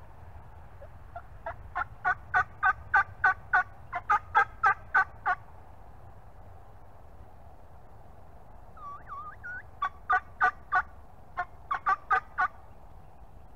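Turkey yelping: a run of about fifteen sharp, evenly spaced yelps, about three a second, then a few soft notes and a second run of about ten yelps.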